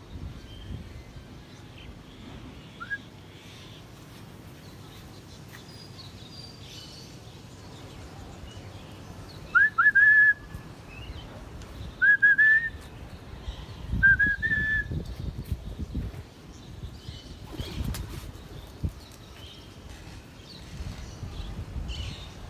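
Three bursts of short, sharp rising whistles, two or three notes each, spaced a couple of seconds apart around the middle. Behind them are faint high bird chirps.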